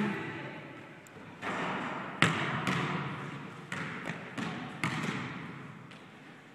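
A basketball bouncing on a court, about six bounces at uneven intervals, each one trailing off in a short echo.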